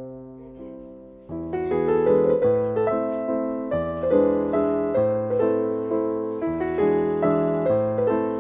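Background piano music: a few soft, slowly fading notes, then from about a second in a fuller, flowing melody with chords.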